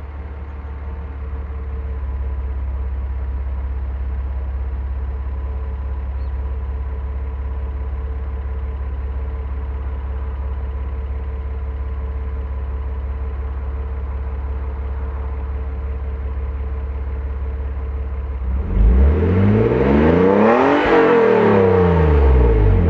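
Nissan Skyline ER34's naturally aspirated RB25DE straight-six idling steadily through a BNR34 GT-R factory exhaust-pressure-valved muffler, quiet at idle. Near the end it is revved once, the note climbing and getting louder, then dropping back toward idle.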